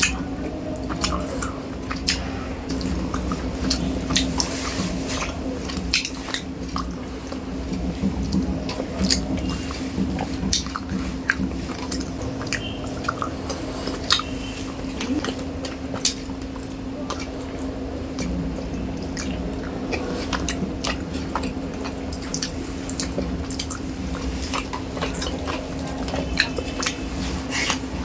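Close-miked eating of rice with pabda fish curry: chewing and wet mouth sounds with many small clicks and squishes, and now and then a light knock on the plate. A steady low hum runs underneath.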